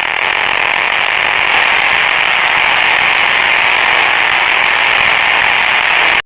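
Harsh, steady buzzing noise from an emergency alert broadcast, loud and without a clear pitch, holding unchanged before cutting off abruptly at the end.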